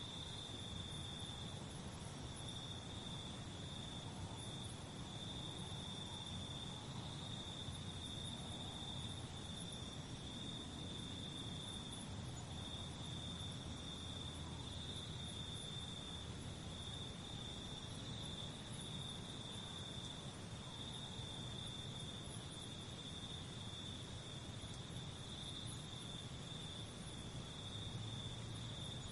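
Crickets chirping in a steady, unbroken high-pitched trill, over a faint low background rumble.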